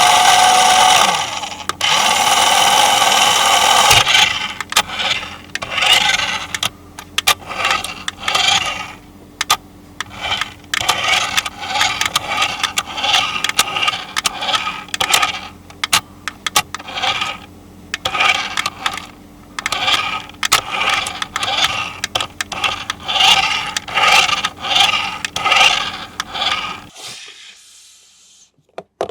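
Small electric motor and gears of an RC toy car whirring, held for a few seconds and then run in many short bursts that stop about 27 seconds in.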